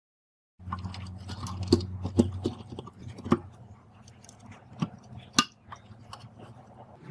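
Parts being handled inside a radio cassette recorder's plastic case: a scatter of sharp clicks and knocks, the loudest about five seconds in. A low hum sits under the first couple of seconds.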